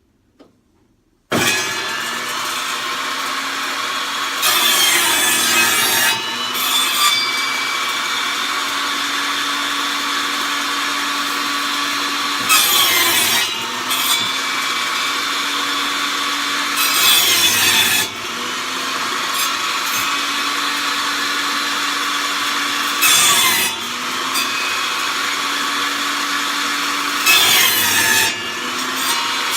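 Table saw switched on about a second in, then running steadily while its blade cuts the overhanging corners off a glued-up wooden board on a circle-cutting jig. Several brief louder passes come a few seconds apart as each corner is cut, and the motor's hum climbs back up in pitch after each cut.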